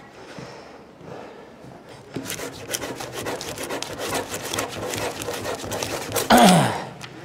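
Ballpoint pen scribbled fast and hard back and forth on paper laid on a table: a dense scratching that starts about two seconds in and runs for about four seconds, as the pen is worked to get it writing. Near the end comes a short, loud voice-like sound that falls in pitch.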